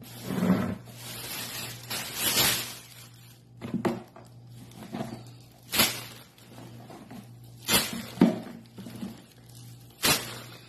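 Plastic shopping bag rustling and crinkling as it is picked up and handled, in irregular bursts with a few sharper crackles, the crispest near the middle and near the end.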